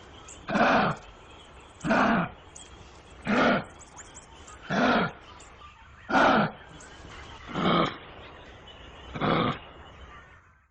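A large animal giving a loud call seven times, evenly spaced about every one and a half seconds.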